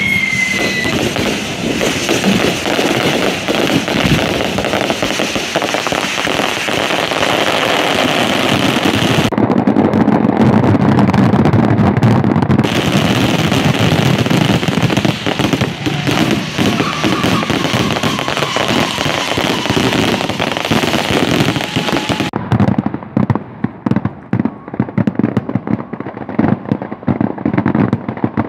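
Fireworks bursting in a dense barrage: a continuous run of bangs, pops and crackling. A whistle falling in pitch dies away in the first second. Near the end the barrage thins into separate bangs.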